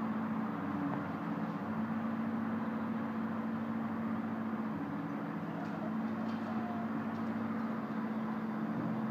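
Excavator engine running steadily at a demolition site, a continuous low drone with a few faint clicks around the middle.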